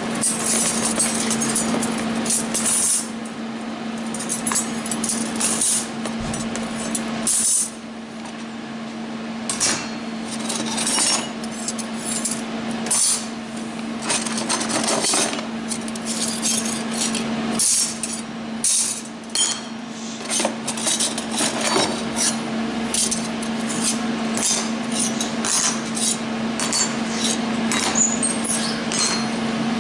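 Flat steel kit parts clinking and clattering as they are picked out of a plastic tote and laid on a wooden workbench, many small knocks at an irregular pace, over a steady hum.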